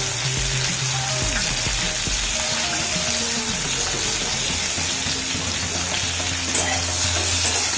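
Bell peppers and cabbage frying in oil in a kadhai on a gas flame, a steady sizzle.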